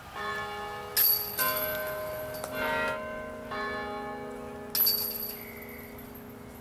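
A series of struck, bell-like metallic tones at several different pitches, each ringing on for a second or more and overlapping the last. Two brighter, sharper strikes come about a second in and again near the end.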